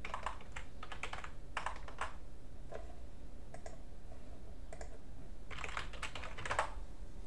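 Typing on a computer keyboard: key clicks in short, irregular bursts with pauses between, the densest run near the end.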